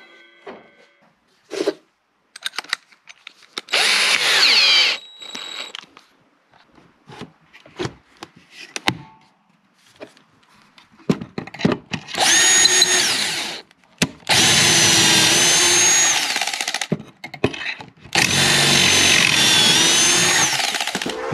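A handheld power tool working wood, run in three loud bursts of a few seconds each in the second half. There is a shorter burst with a rising pitch about four seconds in, and scattered knocks and clicks between the bursts.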